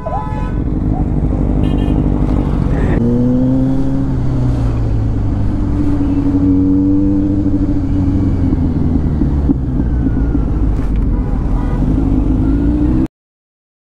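Kawasaki Z900's inline-four engine running under way in traffic, revs climbing and falling as the bike accelerates and eases off. Near the end the sound cuts out completely for under a second.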